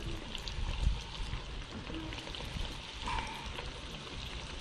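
Breaded fish fingers sizzling in hot frying oil as more pieces are dropped in, a steady crackling hiss. A low thump about a second in.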